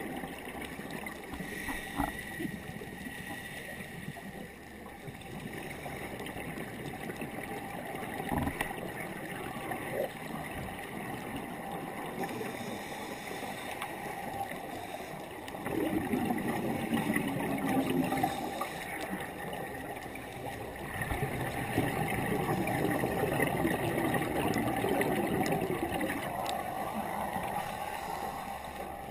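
Underwater sound of scuba breathing through a regulator, heard through an underwater camera housing: steady gurgling water noise with two long bubbling exhalations in the second half and a few short knocks.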